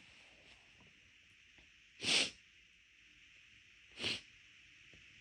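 Two short, sharp breaths through the nose during a run of sneezes, about two seconds apart; the first is longer and louder. Neither carries the voiced "achoo" of a full sneeze.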